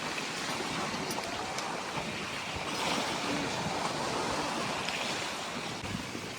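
Sea waves washing on the shore: a steady rushing noise that swells a little midway.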